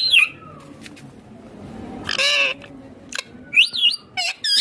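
Pet ringneck parakeet giving a run of short, sharp squawks, about five calls, each sweeping up and down in pitch.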